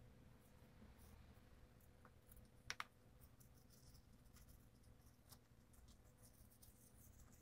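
Faint scratching and light ticking of a small nut brush scrubbing around soapy wheel lug nuts, with a sharper double click almost three seconds in.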